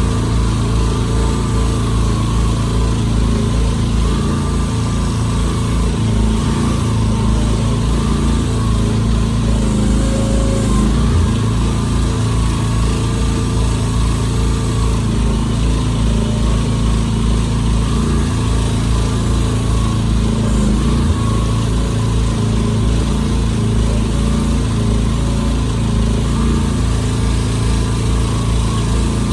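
Mini excavator engine running steadily, with small shifts in pitch about ten seconds in and again around twenty-one seconds in.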